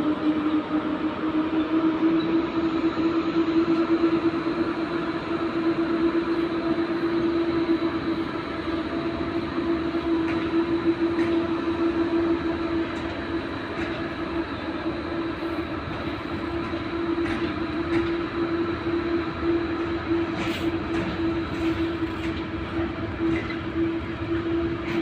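Container freight train rolling past behind two class-07 electric locomotives, with a steady droning tone over the rumble of the wagons. Wheels click over rail joints in the last few seconds.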